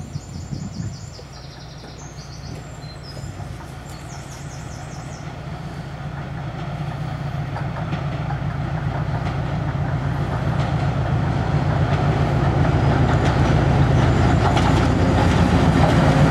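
Diesel locomotive approaching, its engine's low rumble with a fine rapid pulse growing steadily louder.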